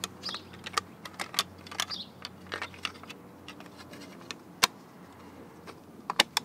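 Irregular sharp plastic clicks and taps as a 3D-printed wheel center cap is pressed into an alloy wheel's center bore, its tabs snapping into the rim, with a louder snap about two-thirds of the way through and a quick cluster of snaps near the end.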